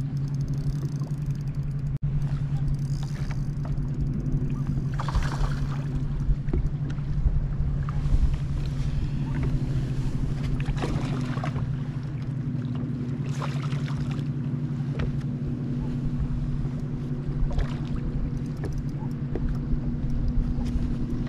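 Boat motor humming steadily at one low pitch, with wind rumbling on the microphone. A few short hissing rushes of noise rise over it.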